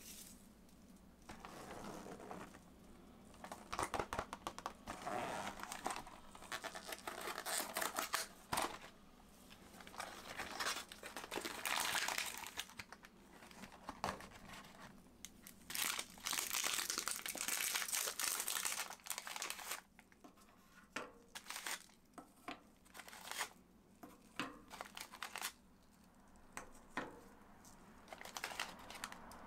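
Crinkly plastic packaging of Oreo cookies being torn open and handled, in irregular crackling bursts with short pauses and a few sharp clicks.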